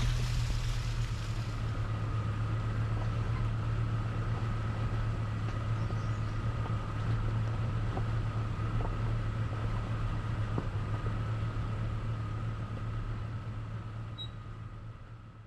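Vehicle running with a steady low drone and a faint steady whine above it, fading out at the end.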